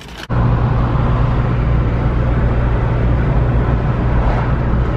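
Steady drone of a car being driven, heard from inside the cabin: low engine hum with road noise, cutting in abruptly just after the start.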